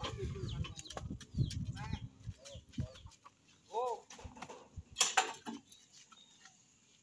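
Trailer-mounted generator being pushed by hand: low rumbling and knocks from its wheels and frame over the first three seconds, then quieter, with a few short clucking calls and a sharp hiss about five seconds in.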